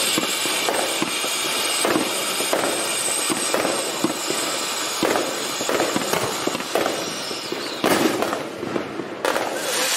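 Shogun 'Quiet As a Mouse' ground fountain firework spraying sparks with a steady hiss and fine crackling. The spray fades, then a fresh, louder gush starts about eight seconds in and another near the end.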